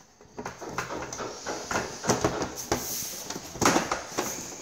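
Plastic side panel of a Jura coffee machine being worked onto its latches by hand: irregular clicks, knocks and scraping of plastic on plastic, with a denser scrape about three and a half seconds in, as the panel does not yet seat.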